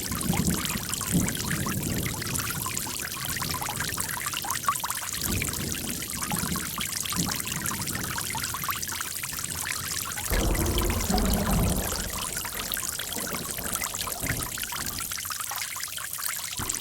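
Running water pouring and trickling steadily, with bouts of deeper gurgling that come and go, the strongest about ten seconds in.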